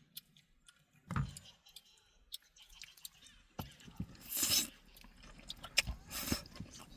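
Close-up chewing and crunching of food: irregular small clicks and smacks, with louder crunches about four and six seconds in.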